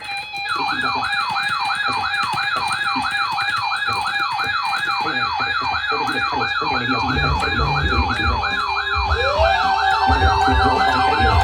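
Electronic yelp-style siren tone, sweeping rapidly up and down about three times a second. Music with a low beat joins it about seven seconds in.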